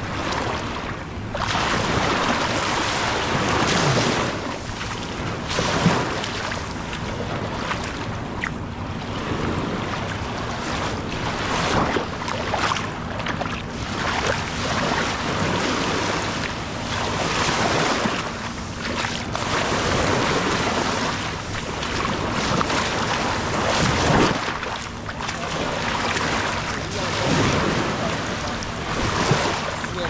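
Small waves breaking and washing over sand and pebbles right at the shoreline. The sound swells and falls every few seconds as each wave runs in and draws back.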